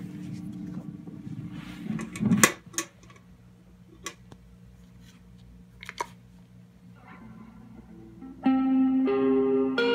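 Electric guitar through a small amp. First comes a low sustained sound with a few sharp clicks and knocks of handling. About eight and a half seconds in, ringing guitar notes start and hold, much louder.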